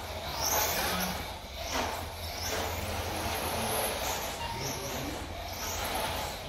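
Xray X12 1/12-scale electric RC pan car lapping a carpet track: its brushless motor gives a high whine that swells and fades several times as the car passes close and drives away.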